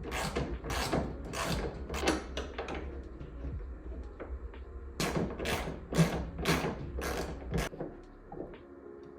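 Ratchet wrench worked in quick strokes, about two a second, in two runs with a pause of a couple of seconds between, fastening a hood strut mounting bracket. A steady low hum underlies the strokes and stops near the end.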